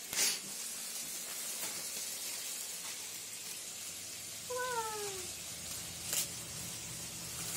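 A black-and-white tuxedo cat meows once, a short call falling in pitch, about halfway through. Plastic wrapping crinkles sharply at the start and again near the end.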